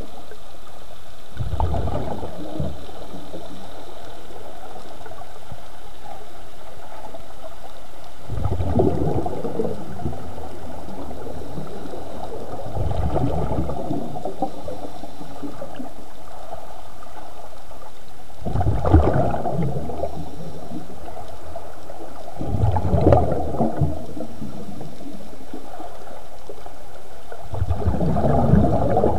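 Underwater sound through a scuba diver's camera housing: the exhaled bubbles from the regulator rush past in bursts about every four to six seconds, over a steady hiss.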